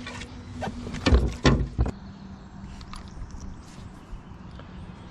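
A few knocks and thumps on a fishing kayak about a second in, from handling a bass and gear on board, then a steady low background.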